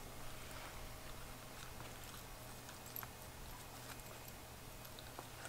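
A miniature schnauzer chewing a raw broccoli floret: faint, scattered crunches and clicks.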